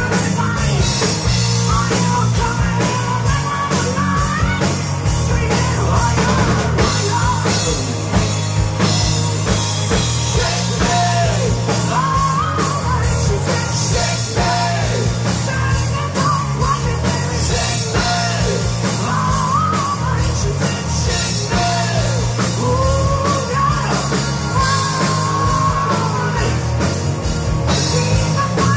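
Rock band playing live: electric guitars, bass guitar and drum kit, with a man singing lead.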